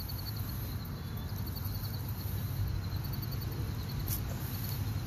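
Steady low background rumble with faint, rapid insect chirping.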